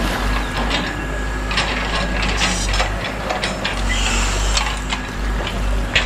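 Radio-controlled model excavators working in sand: steady mechanical whirring from their drive and pump motors, with repeated clicking and rattling of their metal gears and linkages.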